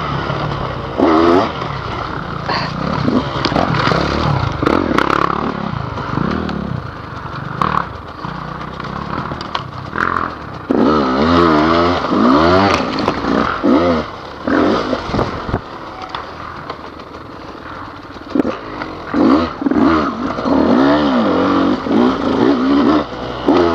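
Dirt bike engine being ridden hard, revving up and falling back again and again every second or two, with knocks and rattles from the bike over the rough trail.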